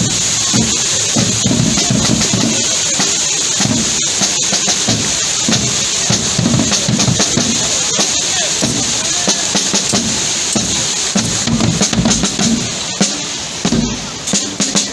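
Marching drum band playing a march in the street: snare drums over a steady bass-drum beat.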